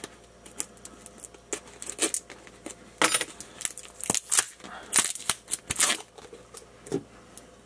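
A box and its packaging being opened by hand: irregular tearing, scraping and crinkling with scattered small clicks, busiest about three to six seconds in.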